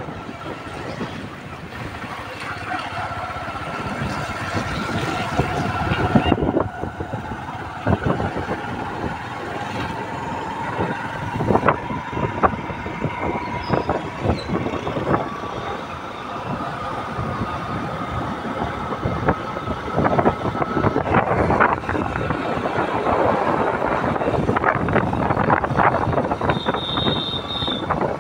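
Motorbike engine running while riding, with wind rushing over the microphone and frequent short knocks.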